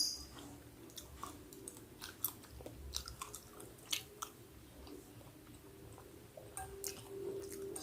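A person chewing bakso meatballs with the mouth close to the microphone, making irregular small wet clicks and smacks.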